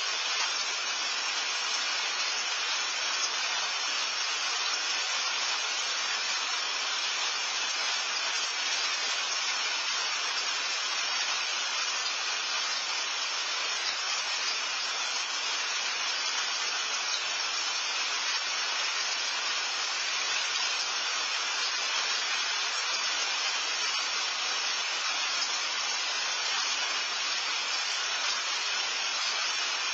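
Steady rain falling, an even hiss that holds without a break, picked up by a patio security camera's microphone.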